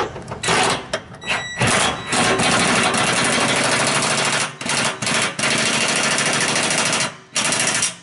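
Ryobi cordless impact driver with a 9/16 socket hammering in repeated bursts, driving a nylon-insert lock nut onto a 3/8 stainless steel bolt: a few short bursts, then a long run of about three seconds and several shorter runs. Really loud.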